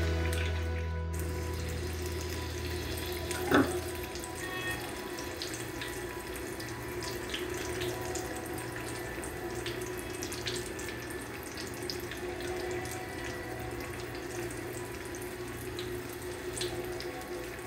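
Breaded eggplant slices deep-frying in hot oil in a pan: a steady sizzle with small crackles and pops, and a single knock about three and a half seconds in.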